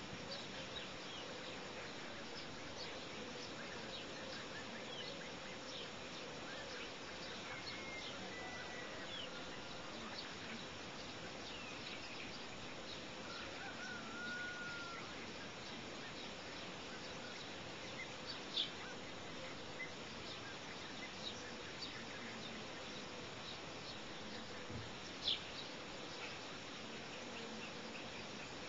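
Outdoor ambience: a steady hiss with a faint steady hum, dotted with short, high bird-like chirps and a couple of brief whistled calls. A few of the chirps stand out louder, in the second half.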